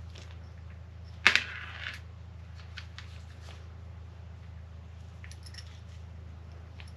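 A sharp metallic clink a little over a second in, with a brief ring after it, then a few light clicks and taps as small metal RC car suspension parts (rear axle and hub) are handled. A steady low hum runs underneath.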